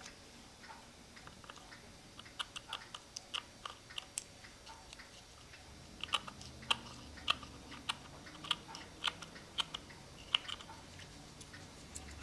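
Light, irregular clicks and crinkles of a cuckoo clock bellows being handled and trimmed, its paper and small wooden parts worked by hand.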